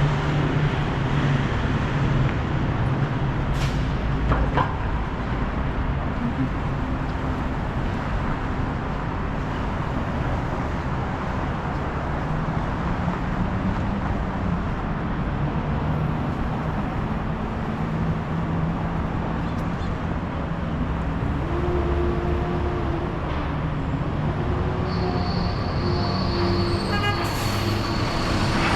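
City street traffic: vehicle engines running and passing, a steady rumble with low hum, and a high steady whine that comes in near the end.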